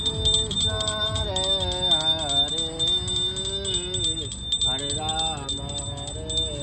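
A hand bell rung rapidly and continuously during an aarti puja, with a devotional melody going on over it.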